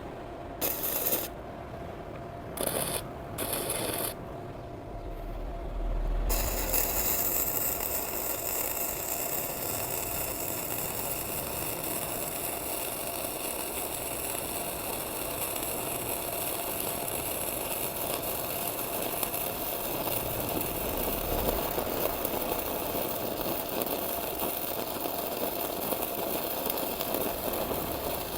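MIG welding arc from a Sekko MIG 250 welder on thick steel: a few short spurts in the first four seconds, then a steady crackle and hiss of continuous welding from about six seconds in to the end, running smoothly.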